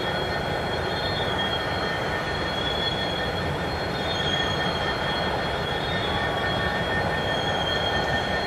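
Railroad turntable turning a Southern Pacific SD diesel locomotive: a steady, high, slightly wavering squeal over a constant low rumble.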